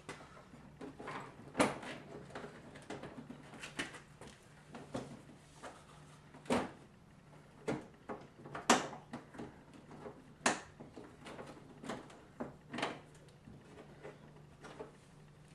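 Irregular clicks and knocks of hand work on a car's plastic front bumper and trim as it is fitted back and its clips and screws are put in, over a faint steady hum.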